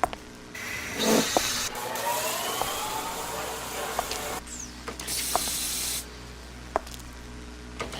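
Hissing noise that switches on and off in abrupt blocks, with a few sharp clicks and a faint rising tone partway through; no music yet.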